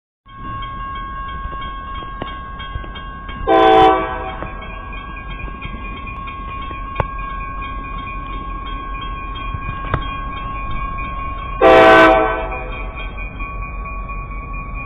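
Railroad crossing bell ringing steadily while the crossing signals are active. Twice, about four seconds in and about twelve seconds in, a locomotive's horn sounds a short blast.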